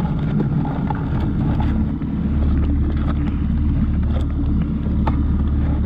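Small boat's motor idling: a steady low rumble and hum that swells slightly about two seconds in, with wind on the microphone and a few faint clicks.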